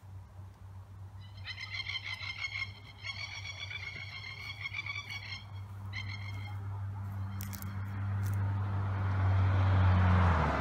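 A frog calling in pulsed trills, three bursts within about five seconds, over a steady low hum. Near the end a rising rush of noise swells up.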